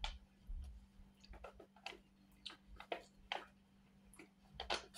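Faint, wet licking and lip smacks as pudding is licked off a foil cup lid: a string of short, irregular clicks about every half second.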